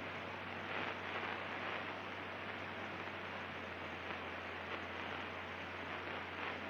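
Steady static-like hiss over a low, even hum: the in-flight background of a Cirrus SR22's cockpit intercom audio, with the engine and propeller drone faint beneath.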